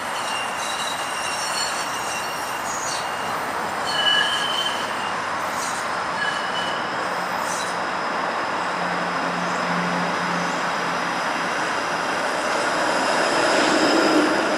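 A TTC Flexity Outlook streetcar rolling along the track toward the camera, its steel wheels squealing on the rails in short, high-pitched tones. The rolling noise grows louder near the end as the car draws alongside.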